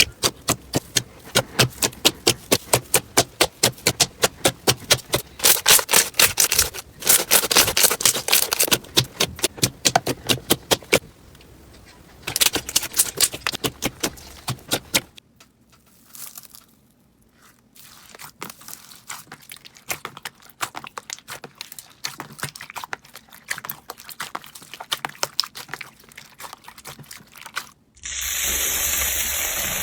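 Slime being squeezed and poked by hand, making rapid crackling clicks and pops, dense at first and sparser after a short lull past the middle. A loud steady hiss comes in for the last two seconds.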